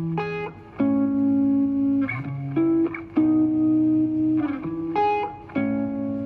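Guitar music playing through a JBL Go 2 portable Bluetooth speaker, with plucked notes and chords each held for up to about a second.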